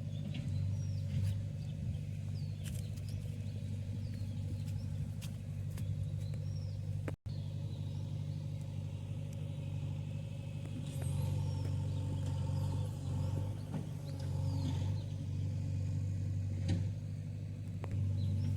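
Diesel engine of a JCB 3DX backhoe loader running steadily with a low hum, a little louder in the second half. The sound drops out for an instant about seven seconds in.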